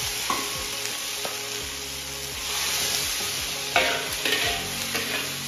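Snapping-turtle intestines sizzling in hot oil in a wok as a metal spatula stirs them, with a few sharp spatula scrapes against the wok, the loudest about two-thirds of the way through.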